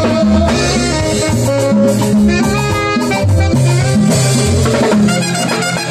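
Live Latin dance band playing loudly, with a bass line stepping from note to note under busy hand percussion.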